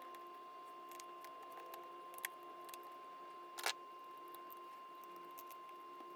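Small, sharp clicks and taps of hand tools on an iPhone 7's case and parts during a screen repair. The clicks are sparse; the loudest comes about three and a half seconds in. Under them runs a steady faint hum.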